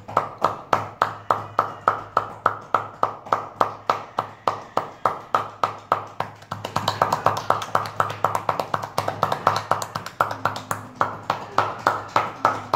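Rapid, steady hand patting for a child's chest percussion ("tepok tepok") therapy, which loosens phlegm during a cough and cold, at about four to five pats a second. A steady low hum runs underneath.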